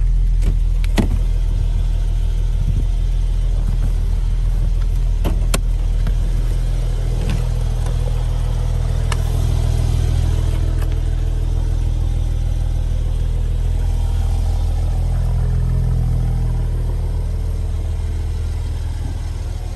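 Mercedes-Benz SL 450's power-retractable hardtop folding down: a steady hum of the roof's hydraulic pump, with a few sharp clicks from the roof mechanism, easing off about sixteen seconds in as the roof finishes stowing.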